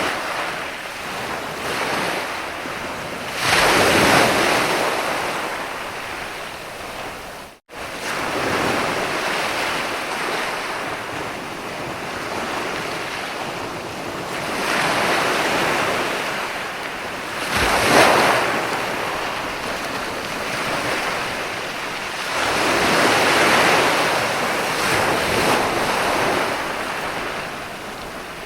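Ocean surf: waves breaking and washing in, the rush of water swelling and easing every few seconds, with the biggest breaks near 4 s, 18 s and from about 23 to 25 s. About a third of the way in the sound cuts out for an instant, like a splice.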